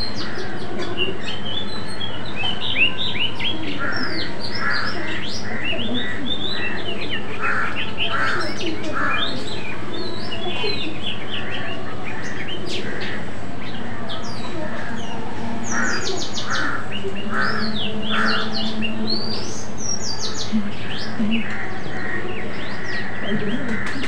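Many birds chirping and calling over one another: quick chirps and sweeping whistles, with groups of three or four lower calls every few seconds.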